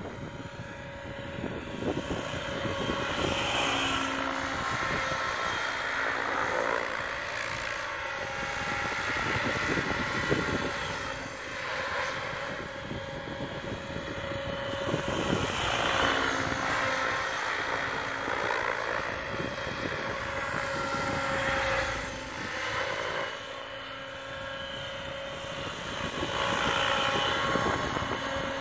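Align T-Rex 700 Pro electric RC helicopter flying, a steady motor and rotor whine whose loudness swells and fades several times as it passes back and forth through figure eights before coming down to land.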